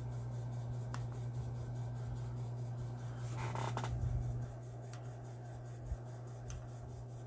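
Faint handling noise of fingers on a small digital pocket scale and desk mat: a brief rub about halfway through and a few light clicks, over a steady low hum.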